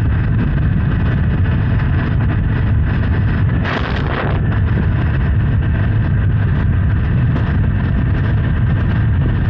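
Honda Hornet 900's inline-four engine running steadily while riding, with wind noise on the microphone. A brief rush of noise comes about four seconds in.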